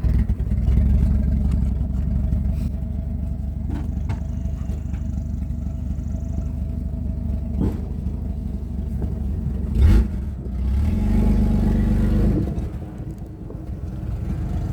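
Jeep 4x4 engine running steadily under load, with a few sharp cracks along the way and a loud knock about ten seconds in. The engine then picks up for about a second and a half and drops back.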